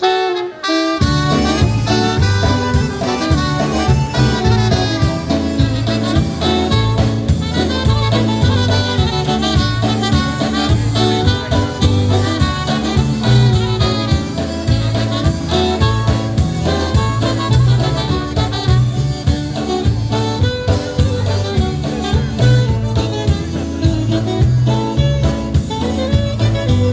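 Live polka band playing an instrumental polka led by alto saxophone, starting about a second in, over a steady bass beat.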